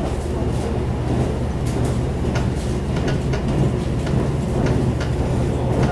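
Running sound of a Taiwan Railway EMU700 electric multiple unit, heard from inside the carriage while under way: a steady low rumble from the wheels on the track, with scattered short clicks.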